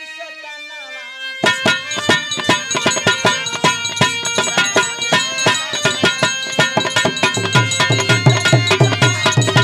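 Bhojpuri birha folk music: a sung note gliding in pitch ends about a second and a half in. Then the dholak breaks into a fast rhythm over sustained harmonium chords, and its bass strokes grow heavier near the end.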